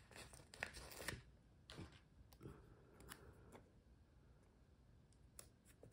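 Near silence with faint, scattered taps and soft paper rustles: a sticker being handled and pressed down onto paper planner pages.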